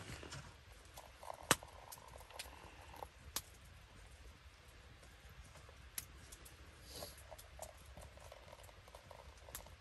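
Quiet background with scattered light taps and clicks, the sharpest about a second and a half in, another near three and a half seconds and one at six seconds.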